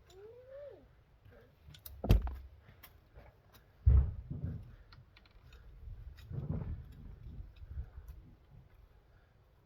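Two heavy thuds about two seconds apart, then a longer stretch of scraping and rustling: a potato tub of wet, soaking soil being handled and emptied out.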